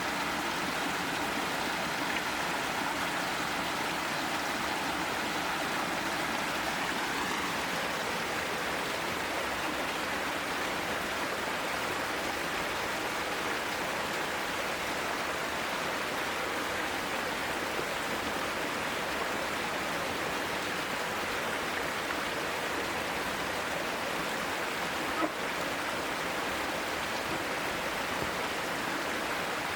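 Mountain stream rushing and burbling over mossy rocks in a steady, unbroken flow.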